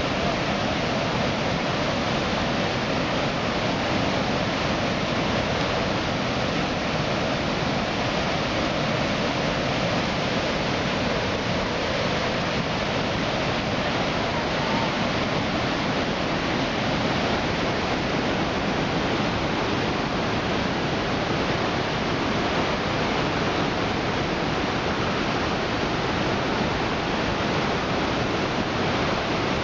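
Brown floodwater rushing and churning through rapids below a dam, a steady unbroken rush of water.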